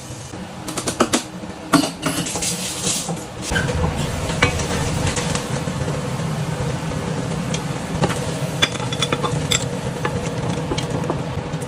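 Metal spatula clinking and scraping in a wok while stir-frying. A cluster of sharp clinks comes in the first few seconds, then a steady low rush with lighter scraping runs under it.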